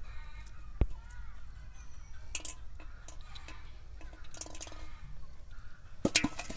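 Close handling noises as a catfish is worked off a hook, with a single sharp click about a second in. Near the end, a quick clatter of knocks as the fish is dropped into a metal basin and hits the metal.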